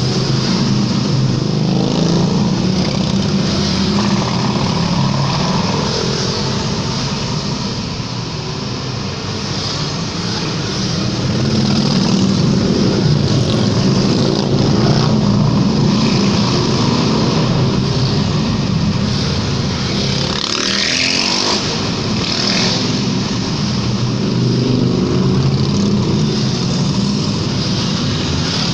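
A convoy of motorcycles riding past one after another inside a road tunnel, their engines running in a continuous loud drone. About two-thirds of the way through, one engine's pitch sweeps up as it revs.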